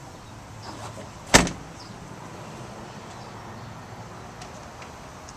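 Front passenger door of a 2009 Dodge Ram 3500 pickup being shut: a single loud bang about a second and a half in.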